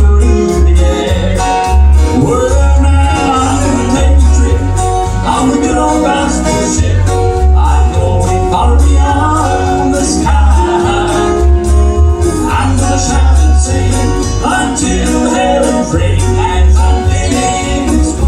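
Live band playing a bluegrass-style gospel song: plucked strings over a steady bass beat.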